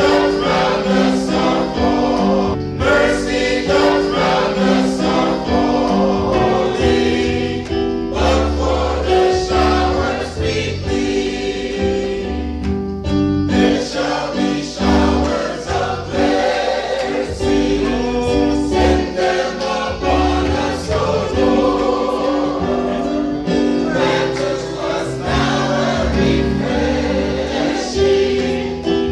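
A choir singing gospel music over a moving bass line.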